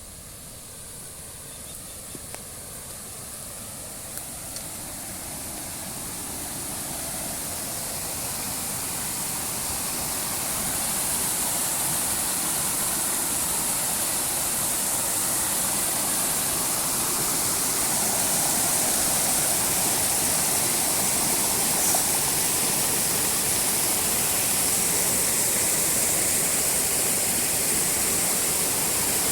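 Water rushing over a dam that is overflowing after heavy rain: a steady hiss that grows louder over the first ten seconds or so, then holds level.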